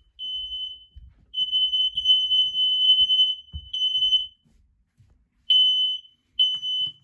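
Household smoke alarms sounding after being set off in a test and not yet silenced: a shrill, steady high tone in beeps of uneven length, with one long unbroken stretch of about two seconds in the middle.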